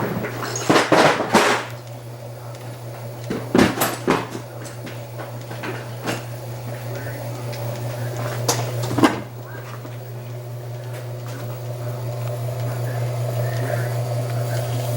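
Antique cast iron ceiling fan motor running on a test bench with a steady electrical hum and a light ticking, which the tester notes is still present. A few knocks and clatter from handling sound about a second in, around four seconds and near nine seconds, the loudest events.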